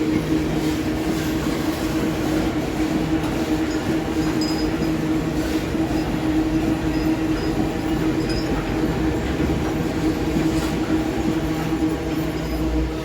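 Loaded iron-ore freight train rolling past: a steady rumble with a steady droning tone, and the wagons' wheels clicking over the rails now and then.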